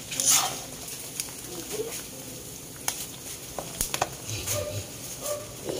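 Oil sizzling and bubbling in a wok as chicken intestines (isaw) deep-fry, with scattered sharp clicks of metal tongs against the wok. The oil is foaming all over, a sign the isaw is nearly cooked.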